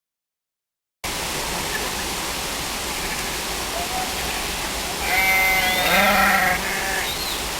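Steady rush of flowing water, with a bleating animal, goat or sheep, calling once for about a second and a half around five seconds in.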